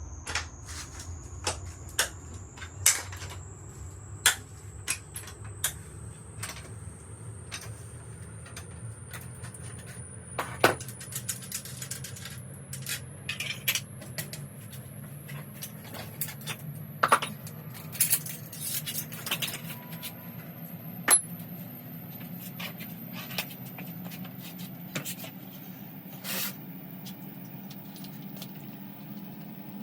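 Scattered sharp clicks and metal clanks of hand tools and parts being handled during a motocross tyre change, in sped-up footage, over a low steady hum. A faint high thin tone rises slowly throughout.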